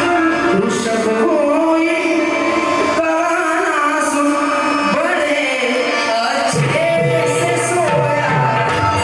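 Live song: a voice singing long, bending, ornamented notes over instrumental accompaniment; the low accompaniment falls away about three seconds in and comes back about three seconds later.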